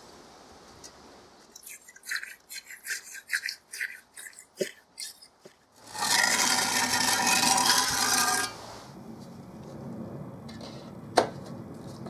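Damp castable refractory scraping and tapping as it is poured from a plastic jug and worked into the furnace lining, as a quick run of short scrapes. About six seconds in comes a loud buzzing for a couple of seconds, then a quieter steady noise and a single click.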